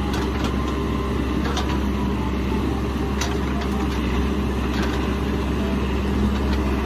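Caterpillar 416F backhoe loader's diesel engine running steadily while the backhoe arm digs, with a few light clicks over the hum.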